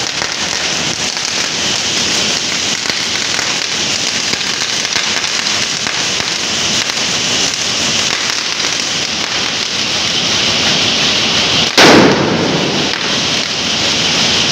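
A long string of firecrackers going off along the ground, a rapid unbroken crackle of small bangs. One much louder bang comes about twelve seconds in.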